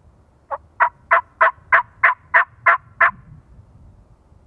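A series of nine evenly spaced hen-turkey yelps, about three a second, made on a diaphragm mouth call to call in a gobbler.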